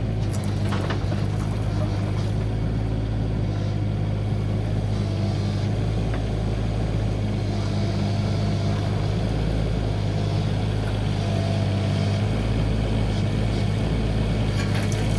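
Mini excavator engine running steadily while the machine works, with a few light knocks about 6 s in and again near the end.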